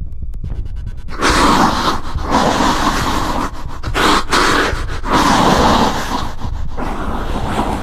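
Eerie sound effect: a low throbbing hum, with about five harsh, raspy bursts of noise laid over it from about a second in, each roughly a second long, like heavy rasping breaths or growls.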